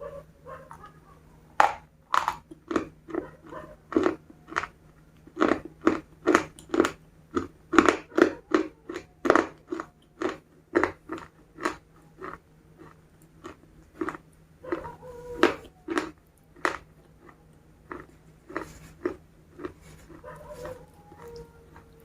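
Close-up biting and chewing of crispy KFC fried chicken: a long run of sharp crunches, about two a second, coming thickest in the first half and thinning out later.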